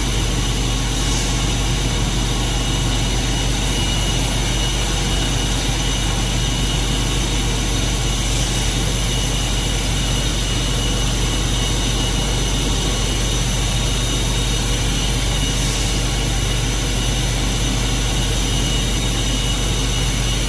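Steady mechanical-room machinery drone: a constant low hum under a broad hiss with thin high whining tones, unchanging throughout. Faint brief swells in the high hiss come about every seven seconds.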